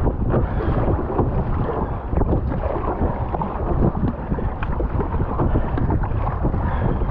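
Wind buffeting the microphone over choppy water splashing and slapping irregularly against a plastic surfski's hull as it is paddled upwind.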